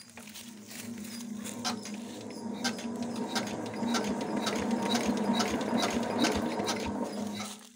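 Kirloskar diesel generator engine being cranked over from cold with a steady hum and repeated clicking, turning but not firing: the engine will not start.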